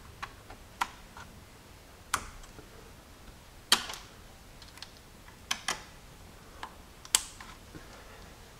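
Irregular sharp plastic clicks, about eight, as the red safety clips on a Jeep 4.0L straight-six's fuel injector connectors are pried up one by one with a screwdriver. The loudest click comes a little before the middle.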